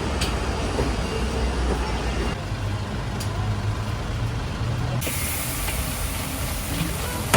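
Street traffic noise: a steady low rumble of passing vehicles such as trucks or buses, changing abruptly twice as the shots cut.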